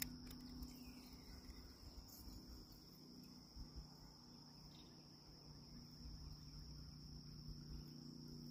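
Near silence with faint, steady, high-pitched insect trilling, and one short click as it begins.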